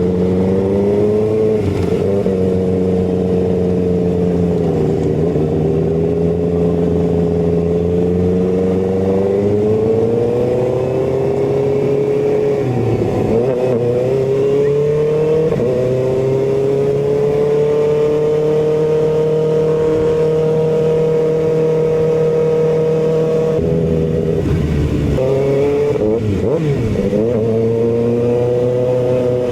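Kawasaki ZX-6R's inline-four engine running under way, its pitch rising and dropping with throttle and gear changes. A long steady cruise in the middle gives way to quicker rev changes near the end.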